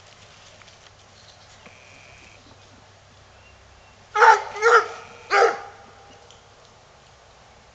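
Coonhound barking, three loud barks in quick succession a little over four seconds in.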